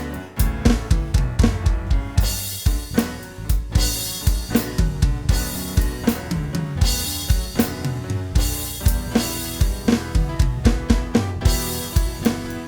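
Instrumental backing track: a drum kit with kick, snare and cymbals playing a steady beat over a bass line.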